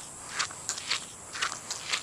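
Footsteps sloshing through shallow floodwater at a steady walking pace, about two splashy steps a second.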